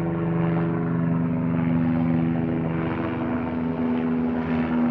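Grand Canyon tour helicopter flying past: a loud, steady rotor-and-engine drone made of several held tones. The strongest low tone drops away about three seconds in.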